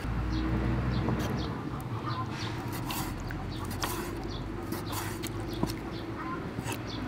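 Kitchen knife cutting cooked clam meat on a wooden chopping board, scattered short knocks, with chickens clucking in the background.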